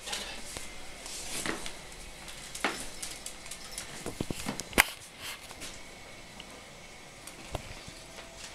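Scattered light clicks and taps of claws on a ceramic tile floor as a small dog and turtles move about, with one sharper click a little before the middle.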